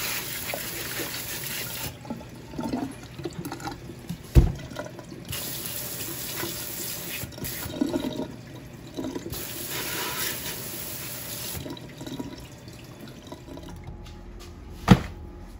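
Kitchen sink pull-out sprayer spraying water onto a fish in a stainless steel sink, switched on in three spells of about two seconds each with quieter handling in between. Two sharp thumps, one about four seconds in and one near the end, are the loudest sounds.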